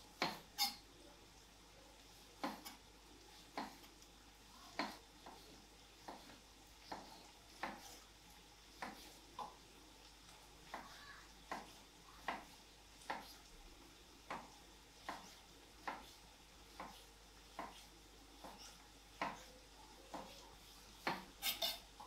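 Slow, evenly spaced knocks and clinks of kitchen utensils, about one every three quarters of a second, with a few louder clinks near the start and near the end.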